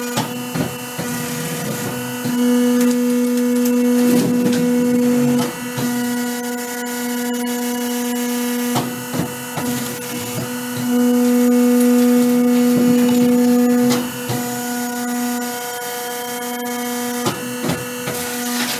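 Electric squash-peeling machine running with a steady pitched hum as it turns a pumpkin against its peeling blades, with light knocks and scraping. The hum gets louder twice, for about three seconds each time, about two seconds in and again near the middle.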